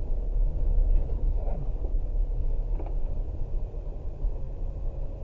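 Low, steady rumble of a vehicle's engine and tyres driving slowly along a dirt track, heard from inside the cabin, with a few faint light knocks.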